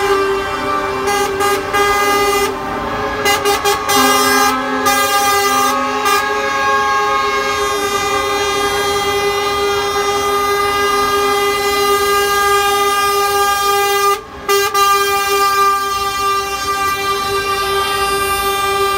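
Lorry air horns sounding long held blasts, several pitches at once, broken by a few short toots early on and a brief pause about fourteen seconds in.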